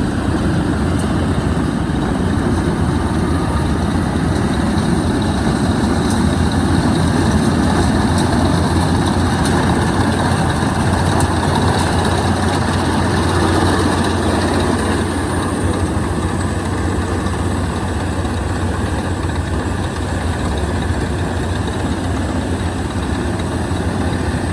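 Yanmar combine harvester's diesel engine running steadily.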